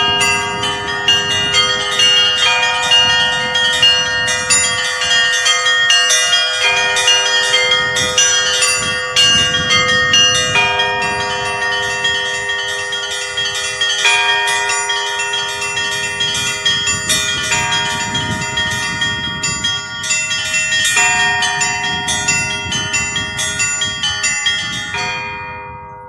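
Russian Orthodox chapel bells ringing: several bells of different pitches struck in a fast, continuous rhythmic peal. Near the end the strikes stop and the bells ring on, fading away.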